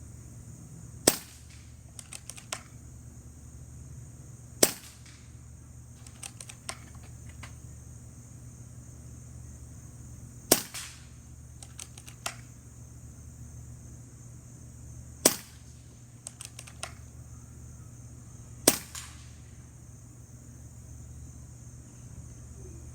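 Air Venturi Avenger .25 PCP air rifle firing five sharp shots at uneven intervals, each followed a second or so later by a few smaller clicks.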